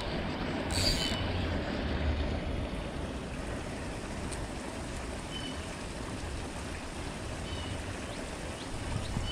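Wind buffeting the microphone over a steady rush of creek water, with a short crackle about a second in and a few brief high chirps.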